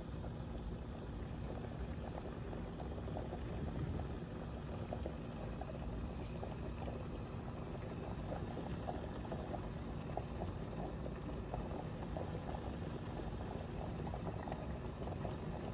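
A pot of stew chicken and red beans simmering in a thick sauce: steady bubbling with many small pops, over a faint low hum.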